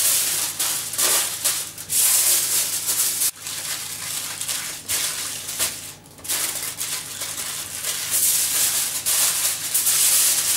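Aluminium foil crinkling and rustling as it is pressed and folded by hand around a meat roll. It breaks off briefly twice.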